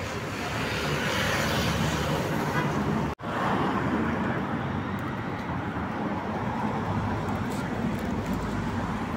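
Street traffic: car engines and tyre noise running steadily, with a sudden split-second dropout about three seconds in.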